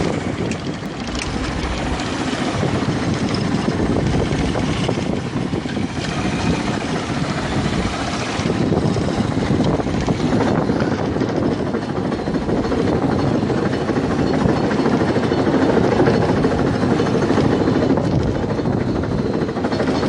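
Fishing boat's engine running steadily, a dense, even rumble that grows a little louder over the first few seconds.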